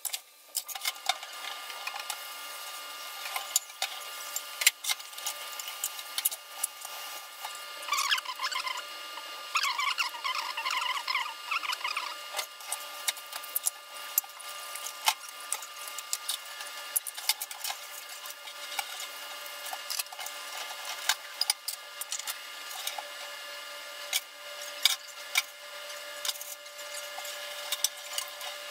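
A pan of water with chicken wings and bay leaves heating up to a rolling, foaming boil: steady bubbling crackle with many small pops. A brief warbling sound rises over it partway through.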